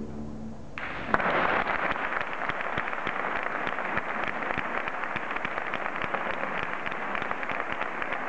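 The choir's last sung chord dies away, and about a second in a church audience breaks into steady applause, a dense crackle of many hands clapping.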